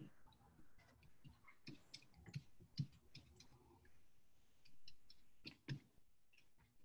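Faint, irregular small clicks and taps, with a brief soft rubbing a little past the middle, from hands handling and working over painted paper envelope pages on a craft mat.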